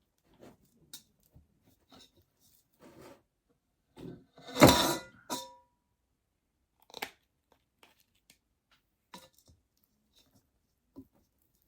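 Cooked rice being spooned into a bowl over salad leaves: scattered soft knocks and rustles, with one louder crunchy knock about four and a half seconds in that leaves a short ring.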